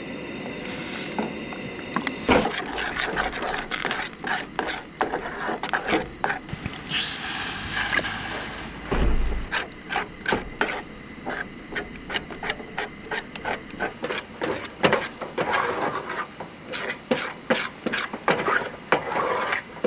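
Water poured from a plastic bottle into a metal pot, then a metal spoon stirring oats and milk, scraping and clinking against the pot in many short strokes.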